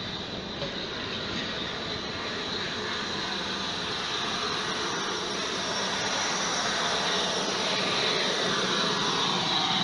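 Bulleid Merchant Navy class steam locomotive 35028 Clan Line rolling past at close range: a steady hiss of steam with a high whistling note, growing louder as the engine draws level.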